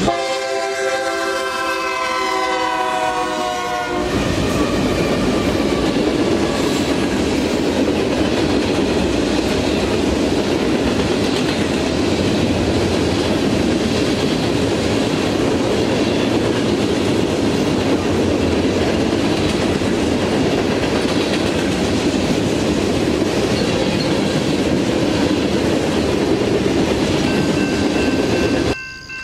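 Diesel freight locomotive's multi-chime air horn blowing a chord whose pitch drops slightly as it passes, stopping about four seconds in. The train's cars then roll past close by with a steady rumble. Just before the end the sound cuts abruptly to a grade-crossing bell ringing.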